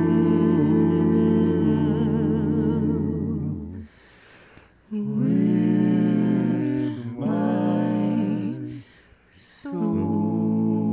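Small vocal ensemble humming slow, sustained chords in phrases, breaking off twice briefly between them.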